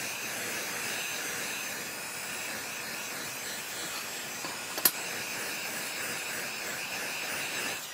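Electric heat gun running, a steady blowing hiss, aimed at nylon cable ties to soften them. A single sharp knock about five seconds in.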